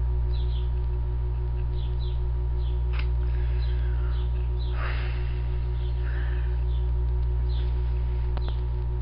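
Steady electrical mains hum: a low buzz made of several steady tones that never changes. Faint short high chirps come through a few times.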